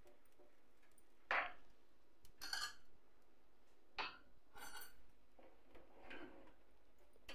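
Light clinks and taps on the metal wire rack and tray of a countertop electric oven as oiled chicken pieces are turned: about five separate knocks spread through an otherwise quiet stretch.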